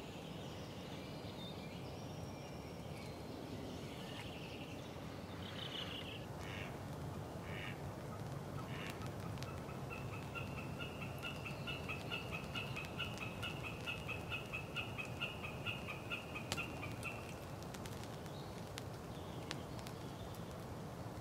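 Birds calling over a spring marsh, with a long, fast run of repeated call notes lasting about seven seconds in the middle, the loudest sound heard.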